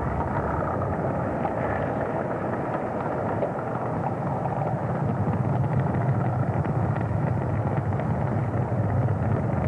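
Submarine lava eruption recorded underwater: lava breaking out into seawater and chilling into pillows makes a continuous noisy rush with scattered faint crackles. The deep part of the noise grows louder about halfway through.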